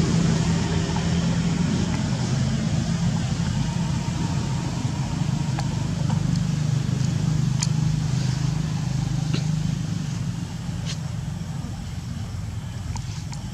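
A steady low mechanical hum, like an engine running, easing off a little after about ten seconds, with a few faint short high ticks.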